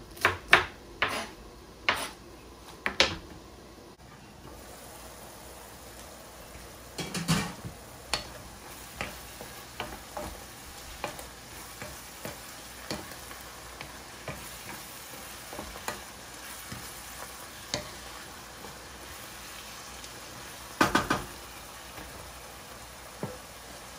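A few knife strokes chopping bok choy on a plastic cutting board, then diced onions sizzling in oil in a frying pan, with a steady hiss. A wooden spoon stirs and scrapes the pan throughout, with louder scrapes about seven seconds in and near the end.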